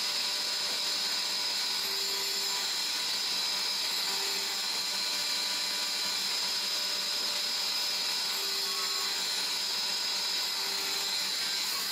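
CNC lathe machining a brass hex fitting: a steady high-pitched cutting hiss over machine hum, with a faint short low tone coming in about four times.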